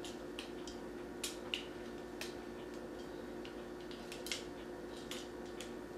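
Scattered small clicks and taps of hard plastic parts on a Transformers Titans Return Brainstorm action figure as its legs are folded and worked into place, over a steady low hum.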